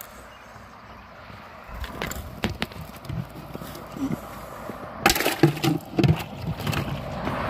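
Footsteps crunching on a loose gravel and stone path: uneven steps starting about two seconds in, with a louder cluster of crunches around five seconds.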